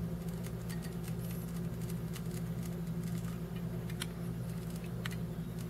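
Faint, scattered small clicks and taps from a hot glue gun being squeezed and worked against a glass jar, over a steady low hum.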